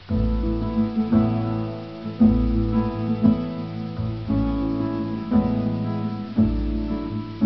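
Slow instrumental background music, with a new chord struck about once a second over a deep bass.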